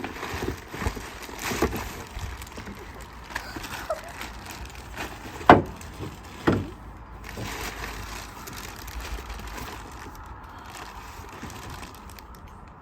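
Golf trolley parts and packaging being rummaged through in a cardboard box: rustling and scraping, with two sharp knocks about a second apart around the middle as parts are handled.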